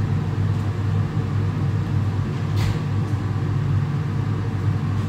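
Kitchen extractor hood fan running with a steady low hum, with a single short click about two and a half seconds in.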